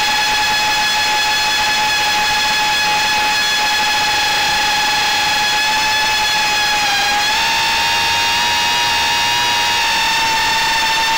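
Brushless motors and 3-inch propellers of a small FPV quadcopter (DYS 1306 motors, Gemfan Flash props) whining steadily in cruising flight, heard from the onboard camera with a hiss of air rush. About seven seconds in the pitch dips briefly with a throttle change, then settles slightly higher.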